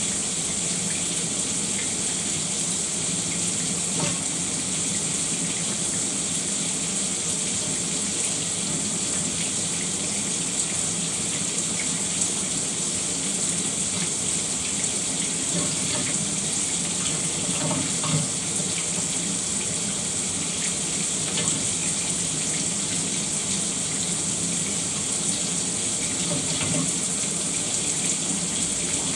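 Shower running steadily, water spraying and splashing without a break, with small scattered drips and splashes standing out here and there.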